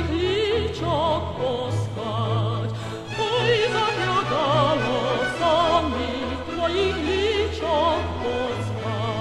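A woman's operatic voice singing high, held notes with wide vibrato over an orchestral accompaniment.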